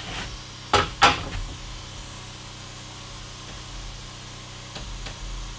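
Two sharp knocks on a wooden wall stud, about a third of a second apart, each ringing briefly, over a steady low hum.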